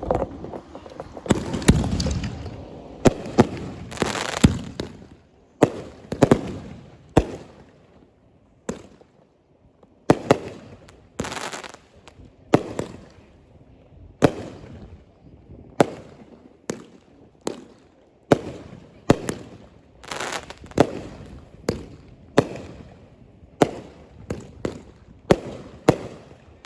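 Fireworks going off in a rapid string of sharp bangs, roughly one a second, each trailing a short rolling echo, with a brief lull about a third of the way in.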